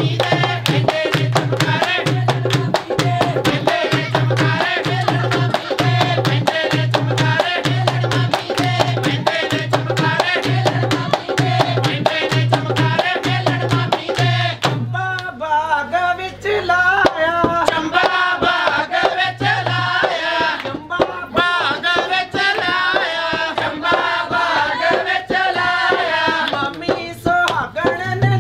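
Punjabi folk song: voices singing over a steady deep drum beat and fast, sharp percussive clicks. The deep drum beat drops out about halfway through and comes back near the end.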